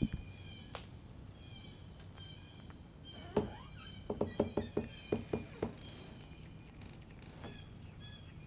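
Domestic cat chewing and crunching a shrew's body: a sharp crunch about three and a half seconds in, then a quick run of about eight crunching clicks over the next second and a half. Birds chirp faintly in the background.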